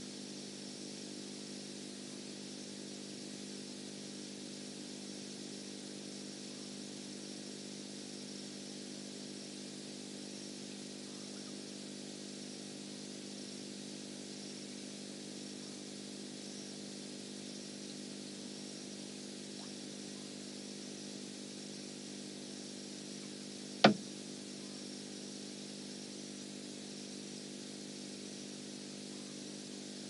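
Steady, even hum like a running engine or motor, made of several low tones, over a faint high hiss, with a single sharp click late on.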